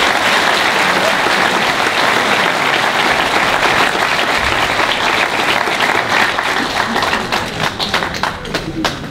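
Audience applauding, a dense steady clapping that thins into scattered separate claps near the end.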